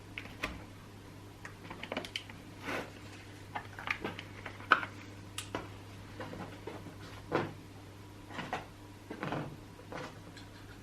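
Scattered clicks, light knocks and brief rustles of chainsaw parts being handled and fitted by hand, around the carburetor and intake hose, over a steady low hum.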